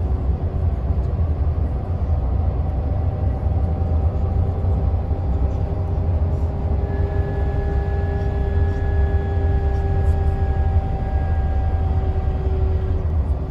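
Inside the cabin of a Mercedes-Benz Travego 15 SHD coach on the move: a steady low rumble, with the retarder's whine in several tones falling slowly in pitch as it brakes the coach.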